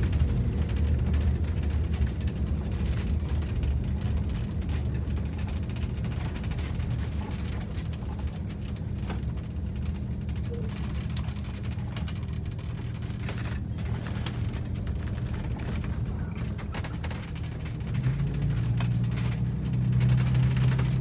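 Detroit Diesel 8V92TA two-stroke V8, freshly rebuilt with new pistons and liners, droning steadily under way, heard from inside the bus's cab. About eighteen seconds in, its note steps up and it gets louder.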